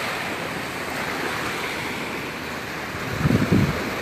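Gulf surf washing steadily onto the beach, with low gusts of wind buffeting the microphone a little after three seconds in.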